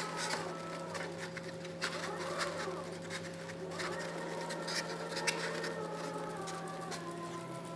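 Stepper motors of a home-built CNC machine running, their whine changing pitch in steps as the axes change speed, over a steady electrical hum and a few light clicks.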